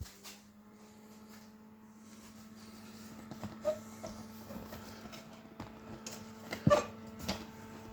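A 1970s slide projector switched on with a click, its cooling-fan motor starting and then running with a steady hum. Several sharp clicks and knocks come over the hum in the second half.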